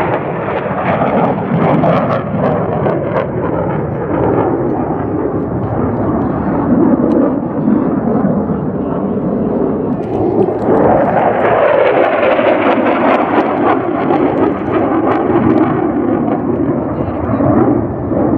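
Loud jet engine noise from an F-35A Lightning II fighter in flight: a steady rushing rumble that turns fuller and brighter about ten seconds in.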